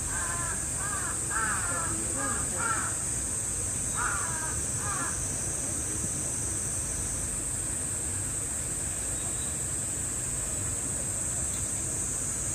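Crows cawing in a quick run of harsh calls through the first three seconds, then a few more about four seconds in, over a steady high-pitched hiss.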